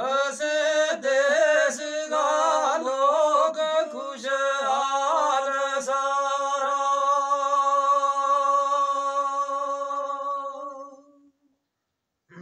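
A man singing unaccompanied in a high voice: a folk melody with quick ornamented turns, then one long held note that fades out near the end.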